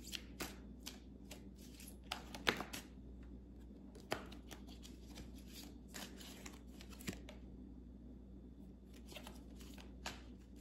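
A deck of cards being shuffled and handled: faint, scattered rustles and light taps, the sharpest about two and a half seconds in.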